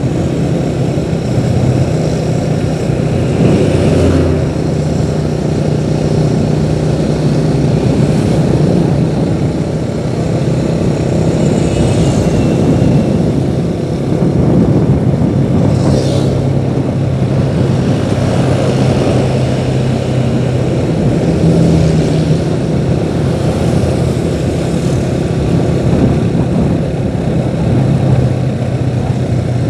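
A motor vehicle's engine running steadily under way, with road and wind noise and small rises and falls in engine pitch.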